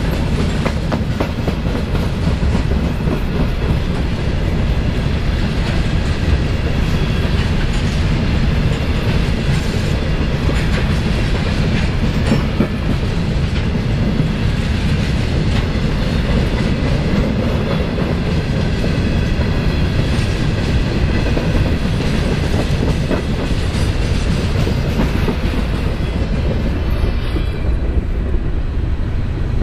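CSX freight train's covered hopper cars rolling past close by: a steady rumble with the wheels clicking over the rail joints, easing off near the end as the last cars go by.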